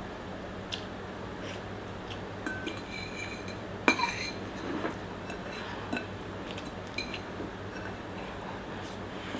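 Eating utensils clinking and tapping against a bowl or plate in scattered light strikes, with one sharper ringing clink about four seconds in.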